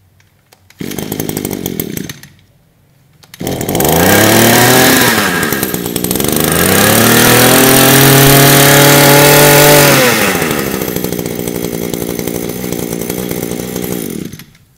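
A small 22cc two-stroke brush cutter engine is pull-started: a short burst about a second in, then it starts about three and a half seconds in. It is revved up twice, the second time held high for about three seconds, then drops back to a steady idle and is shut off near the end.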